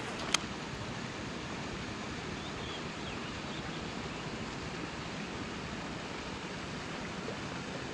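Steady wind noise on the microphone, with one sharp click about a third of a second in.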